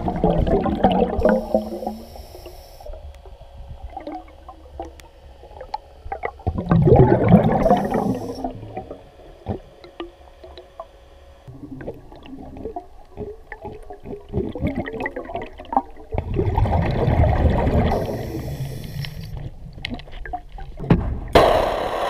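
A diver breathing underwater through a demand regulator: three gurgling bursts of exhaled bubbles, about eight seconds apart, each followed by a short hiss as the diver breathes in. Small bubble clicks in between. Near the end a loud steady noise starts.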